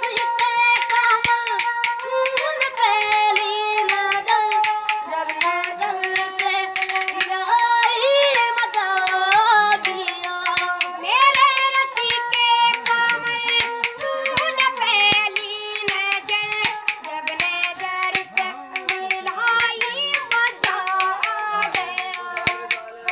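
Boys singing a folk song to a bowed bamboo-necked folk fiddle, with a fast run of sharp hand-percussion clicks keeping the beat.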